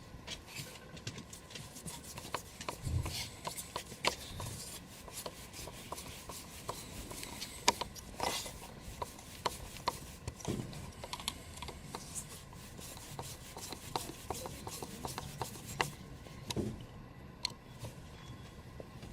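Hands working on a car's intake parts: scattered clicks, taps and rubbing of plastic and tools, with a sharper knock about eight seconds in.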